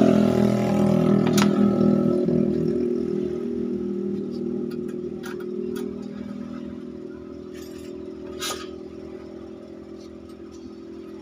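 A motor vehicle's engine running steadily and slowly fading away, the loudest sound throughout. Three sharp metallic clicks, about a second in, around five seconds and at eight and a half seconds, from a hex key on the cover screws of a dbx 231 graphic equalizer.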